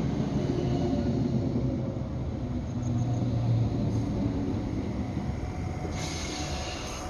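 Class 321 electric multiple unit moving along the platform: a steady low rumble of wheels on the rails, with a brief low hum about three seconds in.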